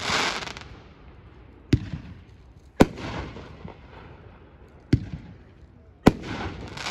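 Magnus "True Legend" 500-gram consumer fireworks cake firing four sharp shots, one every one to two seconds, each followed by a crackling hiss that fades within about half a second.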